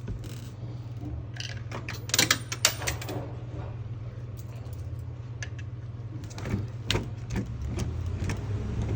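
Coins dropping into a Coke vending machine's coin mechanism and clinking and rattling through it, a quick cluster of metallic clicks about two seconds in, then scattered single clicks. A steady low hum runs underneath.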